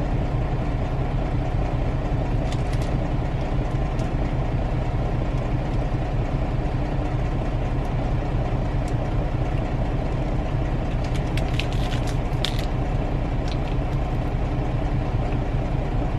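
Steady low hum of an idling semi-truck engine heard inside the cab, with a few light clicks scattered over it, most of them in a cluster about eleven to thirteen seconds in.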